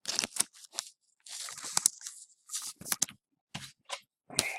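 Trading cards and foil pack wrappers being handled: a run of short rustling, sliding bursts and light clicks as the cards are flipped and shuffled.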